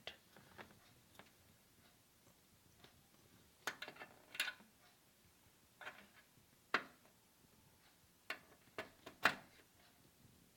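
USB cable being unwound and handled: faint scattered plastic rustles and sharp clicks, a short cluster about four seconds in and several separate clicks later, the sharpest near the end.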